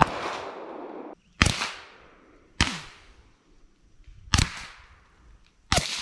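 Five .45 ACP pistol shots heard from downrange, each a sharp report followed by a fading echo, spaced one to two seconds apart. The first is unsuppressed; the last is fired through a Hybrid 46 suppressor.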